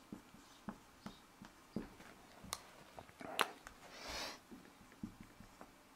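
Faint taps and short scratches of a marker writing on a whiteboard, with a sharper click about three and a half seconds in and a brief hissing swish just after.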